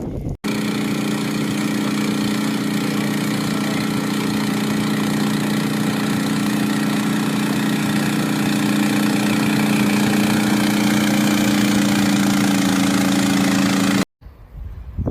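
An engine running at a steady speed, a constant droning hum that cuts in sharply at the start and cuts off sharply near the end.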